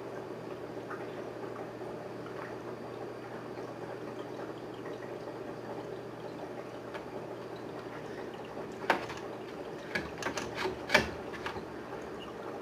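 Water running and bubbling steadily into an aquarium, with a few sharp knocks or clicks near the end.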